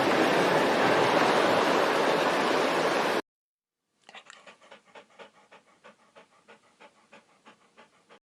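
A loud, even hiss-like noise that cuts off abruptly about three seconds in, then after a short gap a dog panting rapidly and softly, about three breaths a second.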